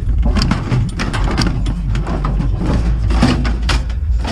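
Scrap being shoved and wedged into a nearly full van, with irregular clattering and scraping knocks over a steady low rumble.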